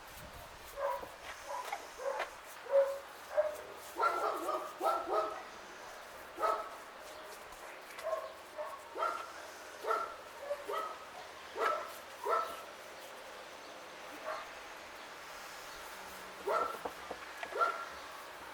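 A small dog barking and yipping in short, irregular calls, one or two a second, with a pause of a few seconds before a last few barks near the end.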